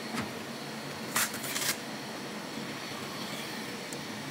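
Two short rasping rips about a second in, as the Velcro strap holding the treatment handle on the leg is pulled open. A steady fan-like hiss runs underneath.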